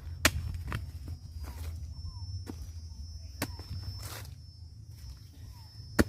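Worm grunting: a stake in the ground being rubbed so that it vibrates the soil and drives earthworms to the surface, heard as a low steady drone with a few sharp clicks or knocks, the loudest near the end.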